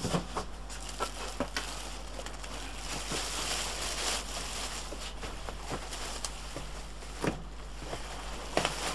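Plastic wrapping bag crinkling and rustling as it is pulled off an appliance inside a cardboard box, densest about three to five seconds in, with a few sharp knocks and taps against the box.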